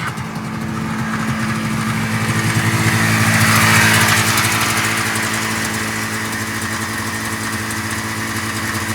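An engine running steadily, getting louder about three to four seconds in and then easing back.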